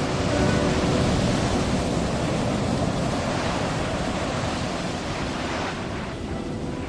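Ocean surf breaking over a flat rock shelf and washing across it. The wash is loudest early, about half a second in, and eases off toward the end.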